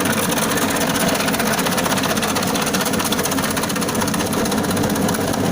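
Akebono SIS-11 electric ice crusher running and grinding ice: a loud, steady grating noise with a fast, fine rattle.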